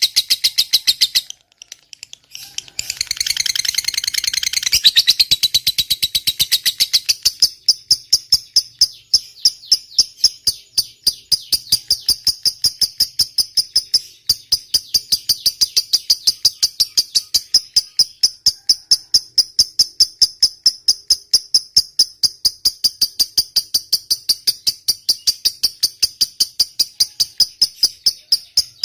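Lovebird giving a long 'ngekek': a rapid, unbroken chattering run of sharp high chirps. It breaks off briefly about a second in, resumes densely, then goes on as an even string of chirps until just before the end.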